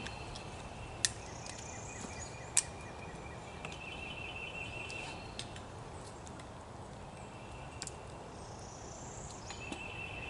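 Sharp clicks of climbing-stick gear and a carabiner being handled on the tree, the loudest about two and a half seconds in. Behind them a high pulsed trill comes back about every three seconds, each run lasting a second or two.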